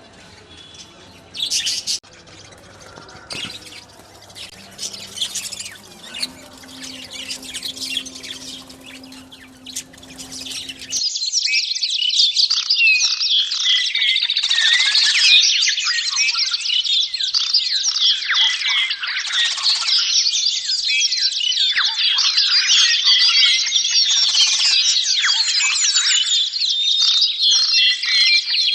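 Caged lovebirds and budgies chirping and chattering. For the first ten seconds or so there are scattered squawks and chirps over a low hum. About eleven seconds in, it switches abruptly to a loud, dense flock chorus of high chirping.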